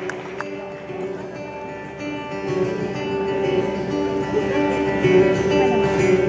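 A single steel-string acoustic guitar playing the introduction to a song, its notes ringing on and the playing getting louder about two seconds in.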